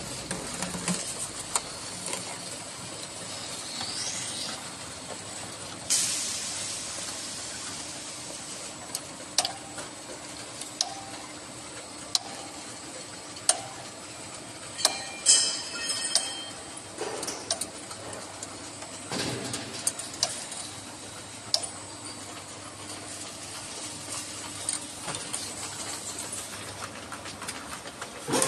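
Bottle filling line machinery running: a steady mechanical background with scattered clicks and knocks, a short hiss about six seconds in, and a brief rattle about halfway through.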